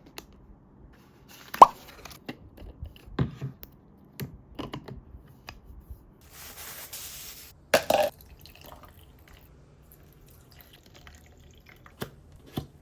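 Irregular drips and plops, short sharp sounds at uneven intervals, one with a quick rising chirp. A brief hiss comes about six seconds in, followed by a louder knock.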